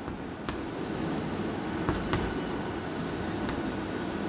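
Chalk on a blackboard: faint scratching with a few short taps as numbers are written, over a steady background hum.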